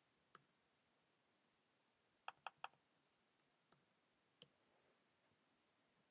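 Sparse, sharp computer mouse clicks, with a quick run of three about two seconds in, against near silence.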